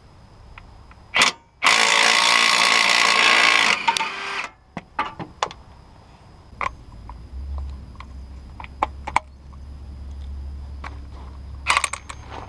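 Ingersoll Rand W5152 20 V brushless cordless impact wrench hammering on a strut bolt. It gives a short blip, then runs for about two seconds before winding down. Scattered metallic clicks follow, and there is another short burst of the wrench near the end.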